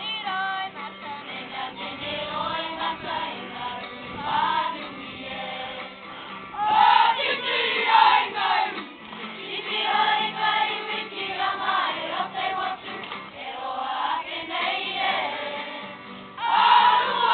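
A group of schoolchildren singing together as a choir, swelling louder about seven seconds in and again near the end.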